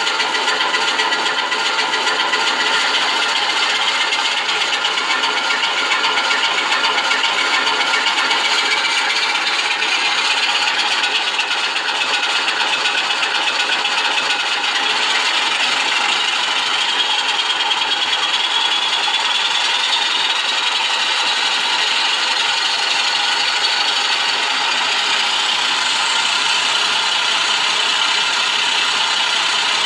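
Alco 539T six-cylinder diesel switcher engine sound played loud by an ESU LokSound v4.0 XL model-locomotive decoder through a small loudspeaker, running steadily with a thin, rattling tone. A whine slowly rises in pitch through the middle.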